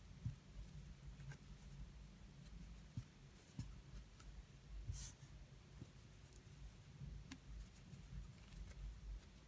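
Faint scratching and light ticks of a 1.5 mm crochet hook working yarn, the yarn rubbing through the fingers, with a brief hiss about five seconds in.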